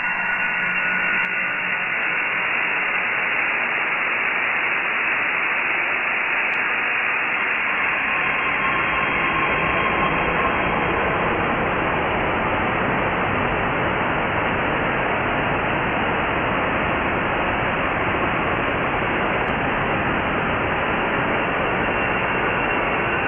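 Dial-up modem handshake slowed down 1000%, at its hissing stage: a steady hiss of static with no tones in it.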